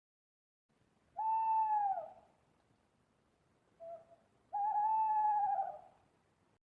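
Owl hooting: a long hoot that dips in pitch at its end, a short lower note, then a second long, slightly wavering hoot.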